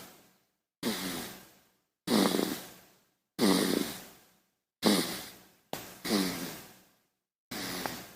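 Baby snoring: a short snore on each breath, about six in all, one every second or so, each fading out into dead silence before the next.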